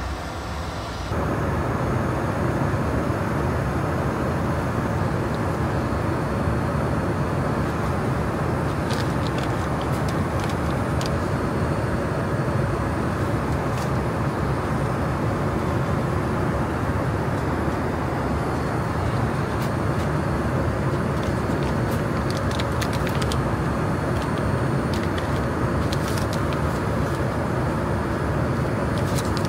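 Steady cabin noise of a Boeing 787 in flight, an even rush that steps up in level about a second in. Scattered light crinkles and clicks of small paper and plastic packets being handled, mostly in the second half.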